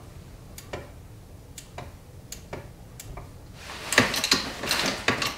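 Yamaha Ténéré 700 suspension damping adjuster clicking as it is turned back to the factory compression and rebound settings: single ticks about every half second, then louder, denser clicking from about three and a half seconds in.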